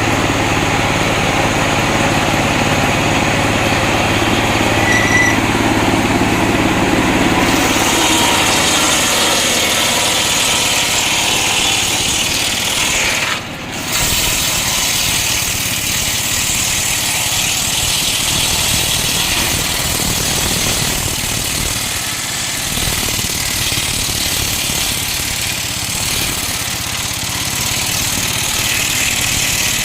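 Homemade engine-driven circular saw machine running steadily while splitting coconut-palm wood. The sound turns brighter and more hissing about seven seconds in, and dips briefly about halfway through.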